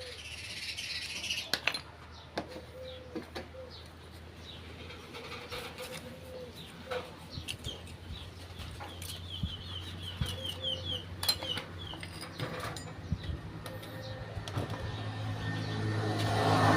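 Birds chirping, with repeated cooing like a pigeon's, and a few sharp clicks. A low hum grows louder near the end.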